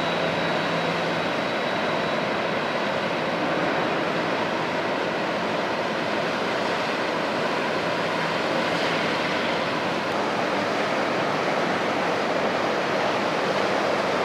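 Steady rushing noise of the container ship MSC Nuria passing close by, its bow wave and the water churning along its hull, with a faint low hum from the ship.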